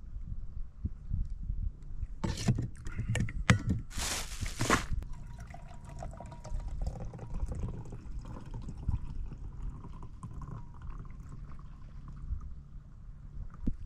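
Water splashing and trickling around a sea kayak, with a few short splashes about two to five seconds in, the loudest just under a second long.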